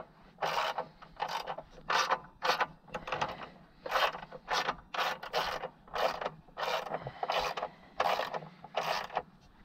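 Hand ratchet wrench being worked on a bolt, its pawl rasping on each return stroke, about two strokes a second in a steady rhythm.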